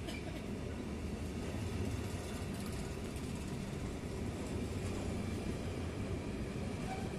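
Freight train of semi-trailers on low-floor intermodal wagons rolling past close by: a steady rumble of wagon wheels on the rails.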